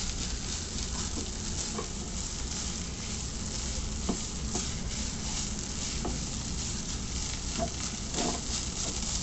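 Noodles and vegetables stir-frying in an oiled pan over a high gas flame: a steady sizzle, with irregular clicks and scrapes as they are stirred and tossed.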